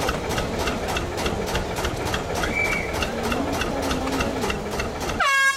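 Small diesel shunting locomotive's engine idling, heard from its footplate, with an even beat of about five pulses a second. A short, loud horn blast sounds near the end, rising briefly in pitch before it steadies.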